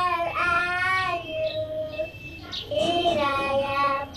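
A child singing a melody in long, held notes that glide up and down, with a short pause about two seconds in.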